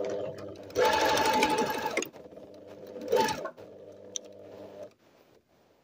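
Electric sewing machine running a seam steadily, louder for about a second near the start, then quieter, and stopping shortly before the end.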